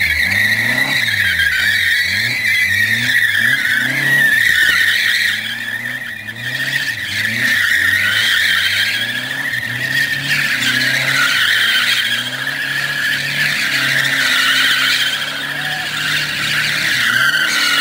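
Tyres squealing without a break as a VW buggy with a water-cooled flat-four WBX engine drifts in circles on concrete. The squeal wavers in pitch, and beneath it the engine revs rise and fall over and over as the throttle is worked.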